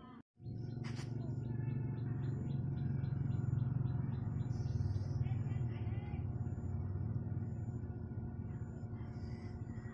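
A steady low mechanical hum, like a motor running, that swells and eases off. Birds chirp over it, with a quick run of high ticking calls in the first half.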